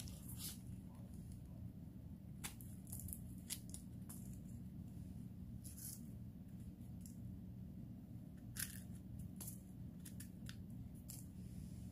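Small knife scraping and trimming the stem and cap of a bitter bolete mushroom: soft, short scrapes at irregular intervals over a steady low hum.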